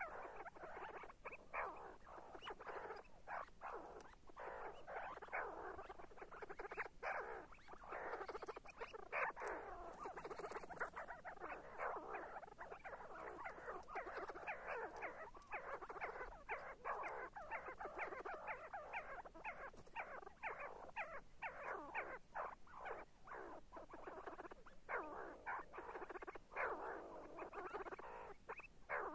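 See-see partridge calling, a dense, unbroken run of short repeated notes.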